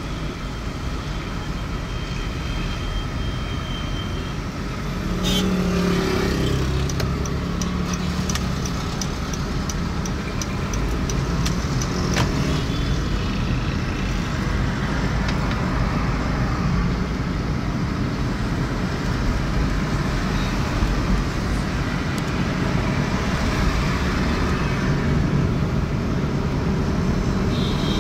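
A car driving on a busy city road: steady engine and road noise with passing traffic, growing louder about five seconds in. A quick run of faint, high-pitched ticks comes near the middle.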